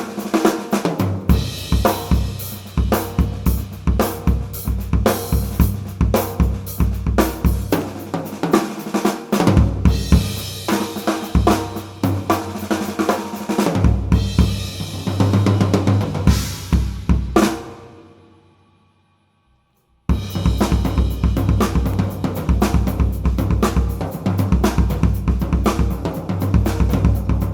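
Sakae Trilogy drum kit with a Ludwig LM552 bronze snare and Paiste cymbals played in a groove: bass drum, snare, hi-hats and cymbals. About fourteen seconds in, cymbals wash for a few seconds, then the ringing fades to near silence for about two seconds before the playing starts again abruptly.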